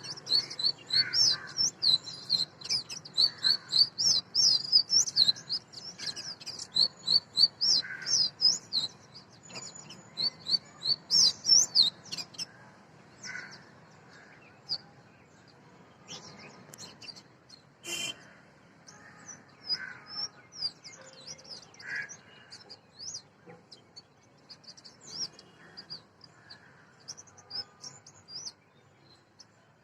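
Oriental magpie-robin singing: a fast, loud run of varied high whistled notes for about twelve seconds, then softer, sparser phrases. A single sharp click about eighteen seconds in.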